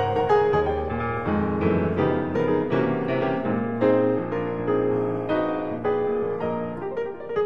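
Background piano music: a continuous run of notes with no pause.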